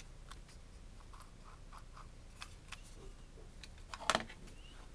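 Faint plastic clicks and scratches from an Omega wireless mouse being handled and turned over, then a louder knock about four seconds in as it is set down on the desk.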